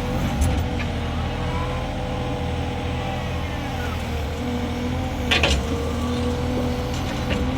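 Mini excavator running steadily, with a hum and a whine that shifts slightly in pitch. A few sharp metallic clanks come through, the loudest about five seconds in.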